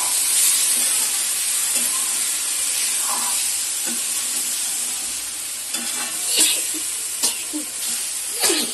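Pasta sizzling as it fries in a steel kadhai, with a spatula scraping and clinking against the pan as it is stirred. The sizzle is steady, and the scrapes come several times, mostly in the second half.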